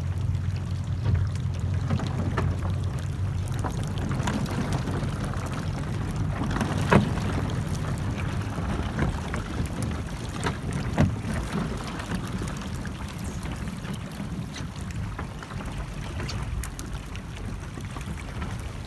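A boat's engine running low and steady, fading after the first few seconds, as the hull pushes through floating glacier ice over sloshing water. Chunks of ice knock against the hull, most sharply about seven and eleven seconds in.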